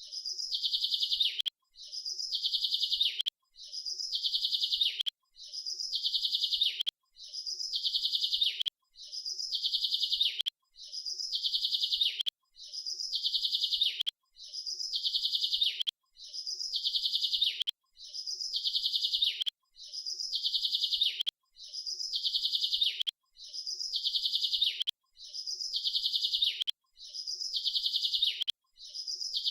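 Bird chirping in fast, high trills, the same phrase repeating evenly about every two seconds with a short break between each.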